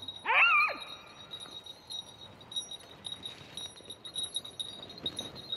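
A beagle-type hunting hound gives one short yelp that rises and falls, just after the start. A steady high tinkling, like a small bell, runs underneath.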